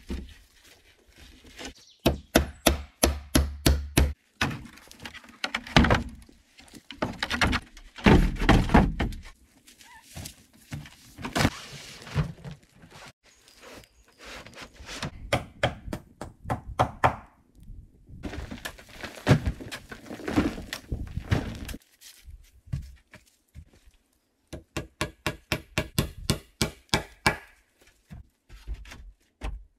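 Hand tools striking wood: runs of quick, hard knocks, about four to six a second, broken by denser clusters of thuds, as timber is worked on an A-frame shelter.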